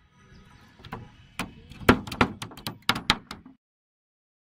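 Hammer driving nails into thin wooden slats on a frame: a quick series of sharp blows, about eight strikes in two and a half seconds, then the sound cuts off abruptly.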